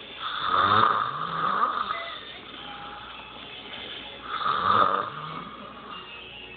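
A sleeping person snoring loudly: two long snores about four seconds apart, the first the longer.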